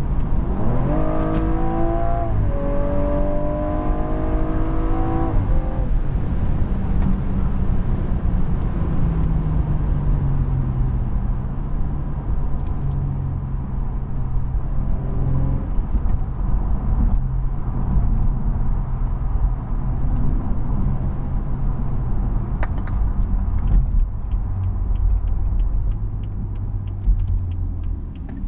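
BMW M135i's turbocharged 3.0-litre straight-six heard from inside the cabin: about half a second in the revs jump and climb hard under full-throttle kickdown, dipping once at a gear change, until the driver lifts off at about five seconds. After that the engine drones steadily at cruising speed under road and tyre noise, with a run of light, rapid ticks near the end.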